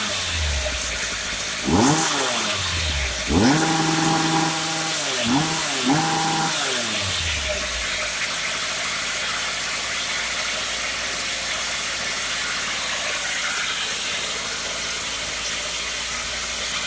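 Concrete cutter's engine revved up and back down several times in short blips over the first eight seconds or so, then left running steadily at idle.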